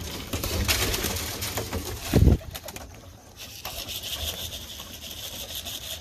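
Pigeons shuffling in a wooden kit box as it is handled, with rustling and light clicks on the wire floor and a loud low thump about two seconds in. After that a steady high hiss carries on.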